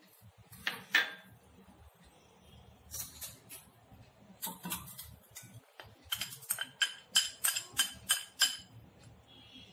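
Glass bowl clinking against the rim of a steel bowl as gram flour is knocked out of it: a few separate clinks, then a quick run of about nine sharp, ringing clinks, roughly three a second, about two-thirds of the way through.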